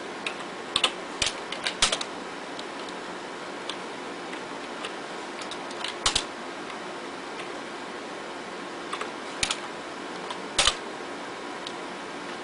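Computer keyboard keys pressed one or a few at a time, making short sharp clicks in small clusters near the start, around six seconds in, and again at about nine to eleven seconds, while menus are stepped through in a BIOS setup screen. A steady hum runs underneath.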